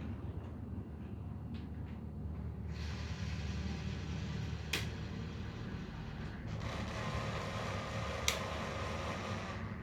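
Sound decoder in a Heljan OO gauge class 27 model locomotive playing a diesel engine's steady low rumble, with two long stretches of hiss and two sharp clicks.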